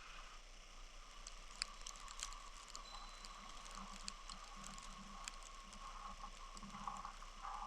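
Faint steady snowstorm ambience: an even hiss with a few scattered light ticks and a brief faint chime tone.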